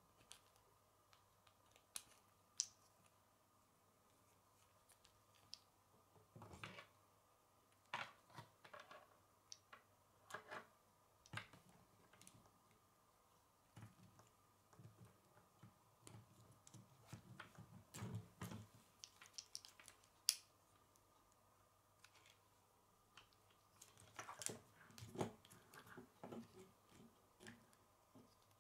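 Plastic K'nex rods and connectors being handled and snapped together: scattered quiet clicks, taps and short rattles at irregular intervals.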